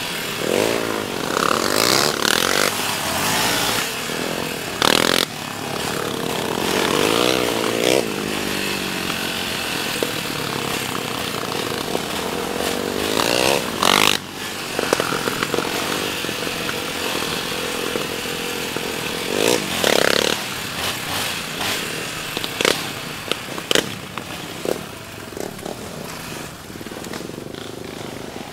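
Yamaha Raptor 700R ATV's single-cylinder engine with a Monster aftermarket exhaust running under the rider on a dirt trail, its pitch rising and falling repeatedly as the throttle is worked. Short sharp knocks come through here and there.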